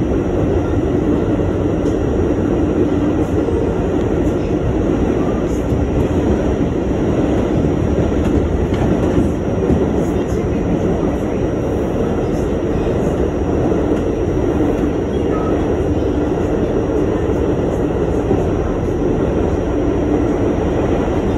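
New York City subway train running at speed on the express track, heard from inside the front car: a steady, continuous noise of wheels on the rails and the car in motion.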